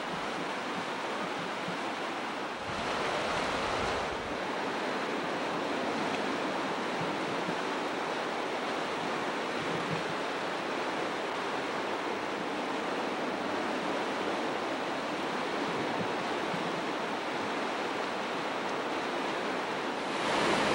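Steady rushing of fast whitewater on the Potomac River at Rocky Island, with a brief louder burst of rumble about three seconds in.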